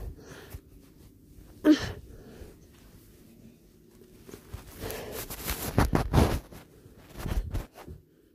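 Plush teddy bear fur rubbing and pressing against a phone's microphone, with a sharp bump about two seconds in and a run of louder brushing rushes a little past the middle.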